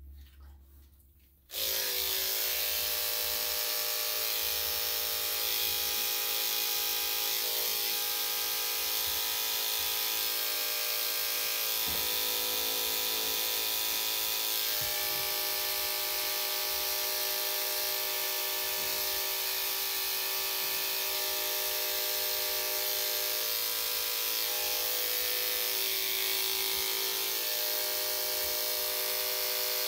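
Corded electric dog clippers fitted with a #10 blade, switched on about a second and a half in, then running with a steady buzz while shaving fur from a Shih-Tzu's legs and feet.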